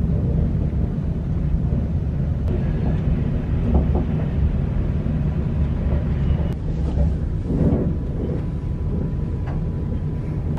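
Steady low rumble of outdoor city background noise, with faint voices about three quarters of the way through.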